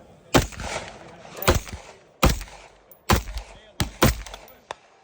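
AR-15 rifle firing about six shots at an uneven, unhurried pace, each a sharp crack with a short echo, and a weaker report near the end.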